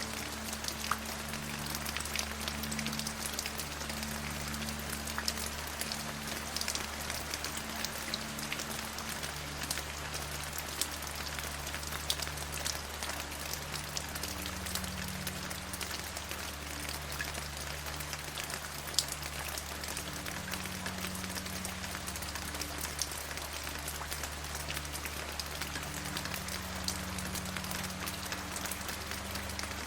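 Steady rain falling, with many individual drops tapping distinctly over an even hiss. Underneath runs a faint low hum whose pitch shifts every few seconds.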